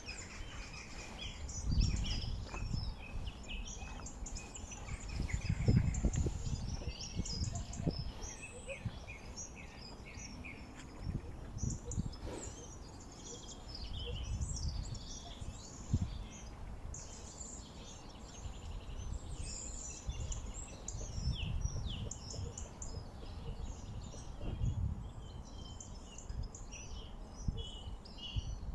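Many small birds chirping and singing together, with low rumbling gusts of wind on the microphone that swell and fade, strongest about two and six seconds in.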